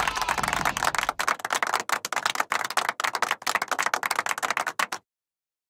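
A cartoon sound effect of rapid, uneven clicking and clattering that cuts off suddenly about five seconds in, leaving dead silence.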